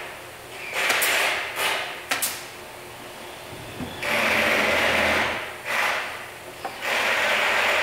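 Power drill driving screws into the wooden staircase, running in short bursts of about a second each, with a longer run in the middle.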